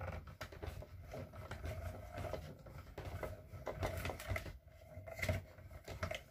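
Small hand-cranked die-cutting machine being turned, its rollers pulling a cutting-plate sandwich with metal butterfly dies and cardstock through. A low rumble with a run of small clicks.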